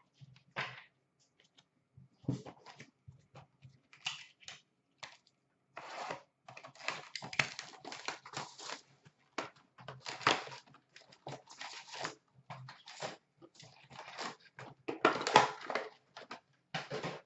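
Cardboard hobby box of Upper Deck SP Authentic hockey cards being opened and its card packs pulled out and stacked: irregular rustling, tearing and tapping of paper and card, loudest about fifteen seconds in.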